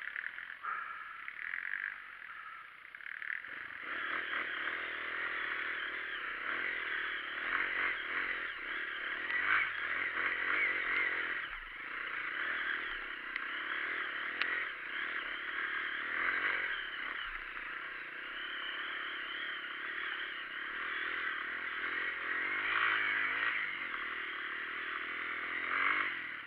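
Off-road motorcycle engine running under load on a dirt trail, its pitch and loudness rising and falling with the throttle. It gets louder about four seconds in and swells again near the end.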